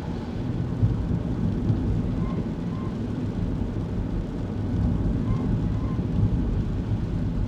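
Kei car driving, heard from inside the cabin: a steady low rumble of engine and road noise. A short, faint squeak comes in pairs about every three seconds.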